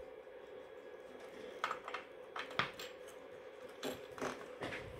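A handful of light clicks and knocks as a four-pin microphone plug is handled and fitted to a CB radio's front panel, over a faint steady hum.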